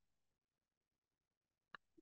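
Near silence, with one faint, sharp click near the end: a computer keyboard keystroke.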